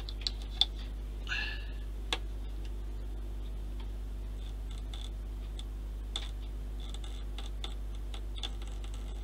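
Small sharp clicks and ticks of metal tweezers handling rigging thread on a plastic model ship, scattered and irregular, the loudest in the first two seconds, with a short soft hiss about a second in. A steady low hum runs underneath.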